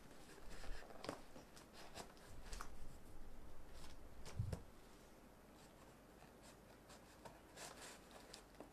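Scissors snipping and scraping at packing tape on a cardboard box: scattered faint clicks and scrapes, with a soft bump about four and a half seconds in.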